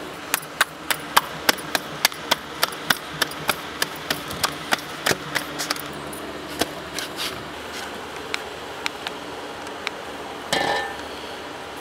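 Rhythmic sharp slaps of hands patting roti dough flat, about three a second for the first five seconds, then sparser and softer. A brief louder scraping noise comes near the end.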